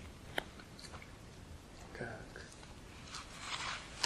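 Faint handling noises in a pause between speech: a single sharp click less than half a second in, a brief soft murmur about halfway, and a short soft rustle near the end.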